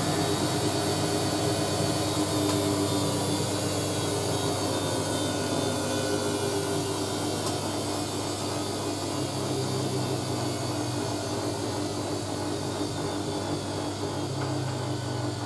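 Hoover A3060 Electronic 1100 washing machine running steadily as its drain pump empties the excess water, a hum made of several steady tones; the pitch sinks slightly over the first few seconds.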